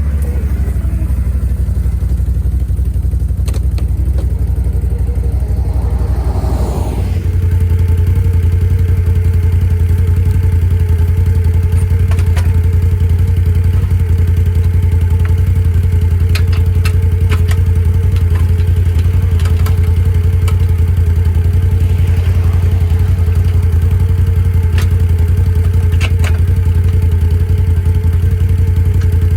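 ATV engine running steadily while skidding logs, stepping up in level about seven seconds in and then holding a steady pitch, with scattered clanks and knocks over it.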